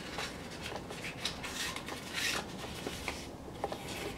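Packaging rustling and scraping in short bursts as hands lift items out of a cardboard box of foam packing peanuts.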